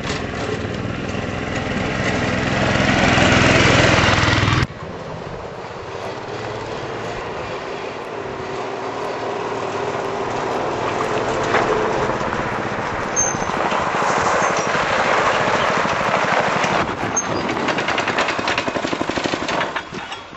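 Yerf-Dog go-kart's small engine running with a fast, even pulse as the kart drives, getting louder over the first few seconds before it cuts off suddenly about four and a half seconds in. It comes back quieter and builds steadily again through the rest.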